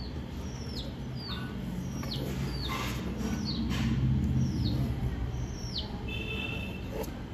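A bird calling again and again: short falling chirps, about one or two a second, over a steady low rumble.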